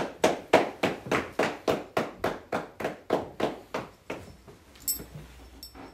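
Masonic acclaim: hands clapping together in a steady, even rhythm of about three claps a second, some fifteen in all, stopping a little past four seconds in.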